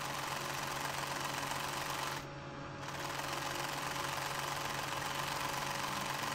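Domestic sewing machine stitching steadily, pausing for about half a second a little past two seconds in, then running again, as it sews a pintuck along a fold in the fabric.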